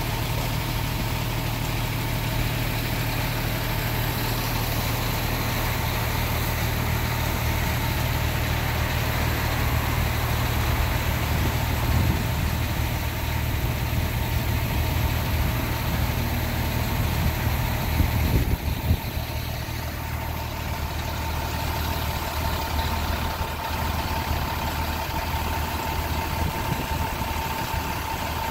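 Fire engine's diesel engine idling with a steady deep hum. A few short knocks come about two-thirds through, after which the low hum is lighter.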